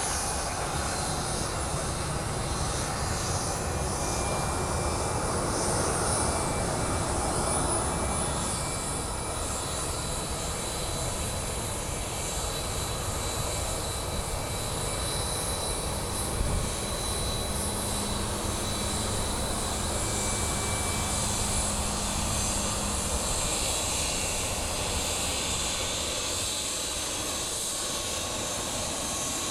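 Steady jet aircraft engine noise with a thin high turbine whine over a rough low rumble, and one short knock about halfway through.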